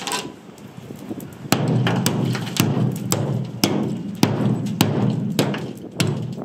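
A hammer striking a rusted steel yacht hull over a patch of body filler: a gap, then about eight sharp knocks, one every second or less. The steel is rusted so thin that the blows break straight through into the hull.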